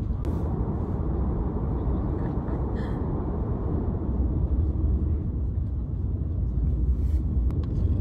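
Steady low rumble of a moving passenger train, heard from inside the carriage, with a few faint clicks.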